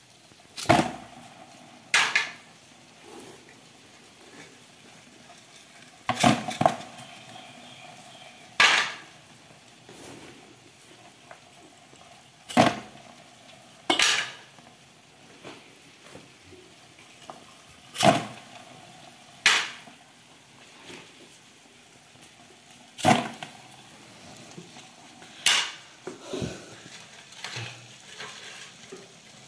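Sharp knocks against a plastic basin holding dubia roaches, about a dozen, irregularly spaced and often in pairs about a second and a half apart, some with a brief ring. These are egg-crate dividers being rapped on the basin to shake the roaches off into it.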